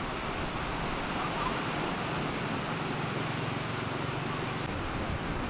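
Steady wash of surf on the beach, with faint chatter from a crowd. A low hum joins about two seconds in and stops shortly before the end.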